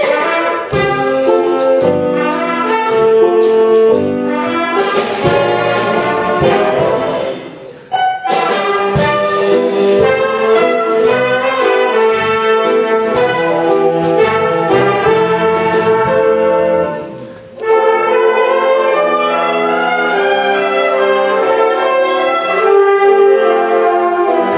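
A brass band with saxophones playing live, with sustained chords and melody lines over a beat. The music breaks off briefly twice, about 8 seconds in and again about 17 seconds in, before the band comes back in.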